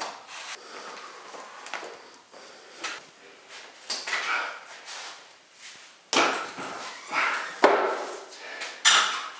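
Weight plates being handled and loaded onto a barbell: a series of knocks, clanks and scrapes, with the loudest sharp knock near the end.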